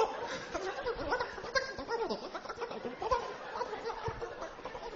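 A man vocalising wordlessly into a handheld microphone: nonsense voice sounds that slide up and down in pitch.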